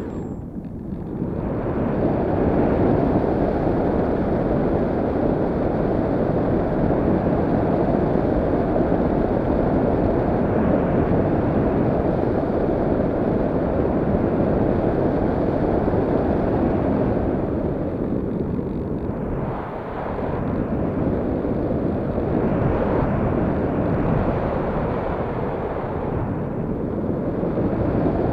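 Steady rush of wind and airflow over an RC plane's onboard camera in flight, with no motor whine. The rush dips briefly a second in, about two-thirds of the way through, and again shortly before the end.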